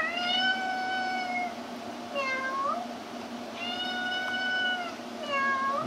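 A cat meowing four times: two long, drawn-out calls, each held at a steady pitch, alternating with two short calls that rise at the end.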